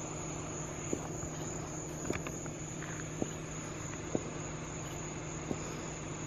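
Night chorus of crickets, a steady high trill, with a low steady hum under it and a few sharp clicks about once a second.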